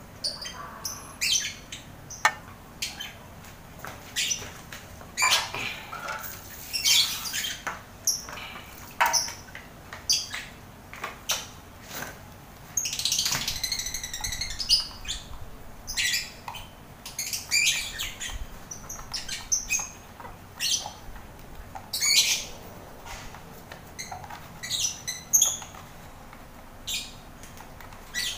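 Lovebirds calling: many short, high-pitched calls at irregular intervals, one every second or so, with a longer run of calls about halfway through.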